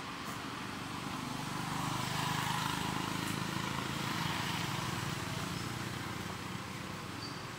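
Low hum of a motor vehicle engine that swells a couple of seconds in and then slowly fades, over steady outdoor background noise.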